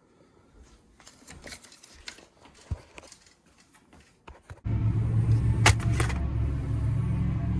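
Light clicks and rustling, then a car engine starts suddenly a little past halfway and runs steadily, with a couple of sharp clicks over it.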